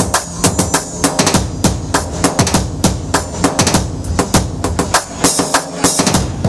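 Drums playing a fast, loud rhythm of many strokes a second.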